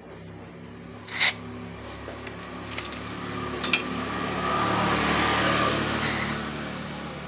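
Aerosol injector cleaner spraying through its straw into a motorcycle throttle body to wash out carbon deposits. A short spurt comes about a second in, then a long hiss swells from about three seconds in and eases off near the end, with a couple of clicks near four seconds. A steady low hum runs underneath.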